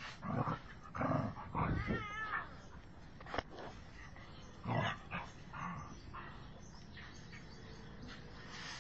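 Domestic cat growling and yowling in several short outbursts, with a wavering cry about two seconds in, as it warns off a dog standing over it.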